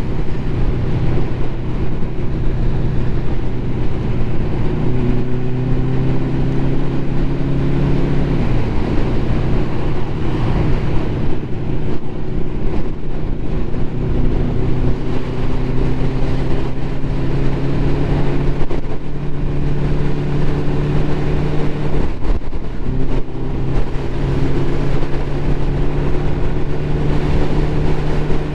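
Ducati motorcycle engine running under way at steady road speed, with road and wind rush. The engine note dips briefly about 8 seconds in and again about 22 seconds in, then settles back to a steady pitch.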